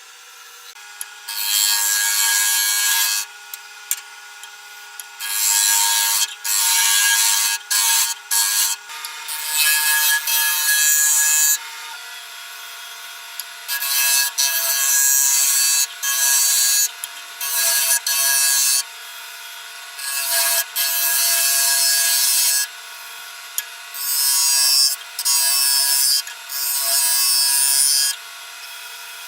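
Wood lathe running with a steady motor hum while a turning tool cuts the spinning wooden bowl blank in repeated passes: loud hissing, scraping stretches of one to five seconds that start and stop about six times.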